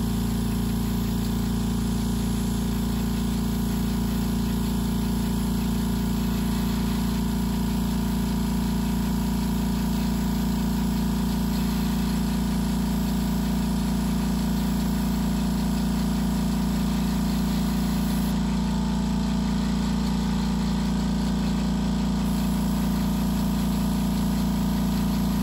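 A 'silent' airbrush compressor running with a steady hum: not perfectly silent, but silent enough.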